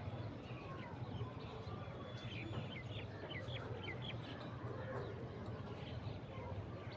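Small birds chirping: a quick run of about six short, falling chirps in the middle, with scattered other calls around it, over a steady low hum.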